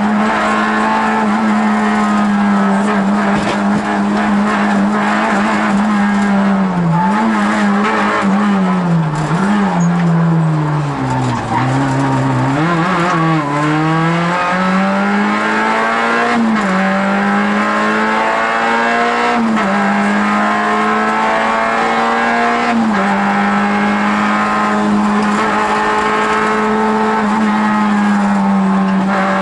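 Rally car's engine heard from inside the cockpit, run hard at high revs on a special stage. About seven seconds in the revs fall away in steps for several seconds, then climb back up, with brief dips at gear changes before settling at high revs again.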